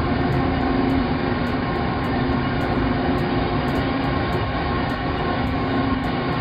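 A heavy vehicle running steadily, a dense rumbling noise with a low hum under it.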